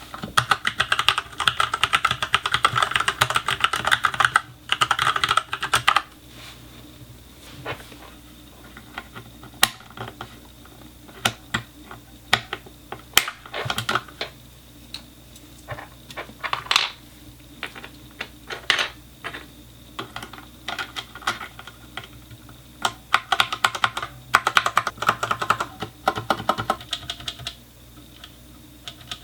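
Typing on an Ajazz K870T mechanical keyboard with Huano brown tactile switches. It opens with fast runs of keystrokes for about six seconds, then scattered single key presses, then another fast run near the end.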